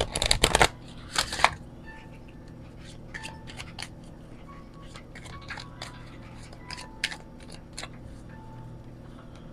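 An oracle card deck being riffle-shuffled: a loud papery fluttering rattle in the first second and a shorter one about a second later. After that come light, scattered card clicks as the cards are shuffled hand to hand.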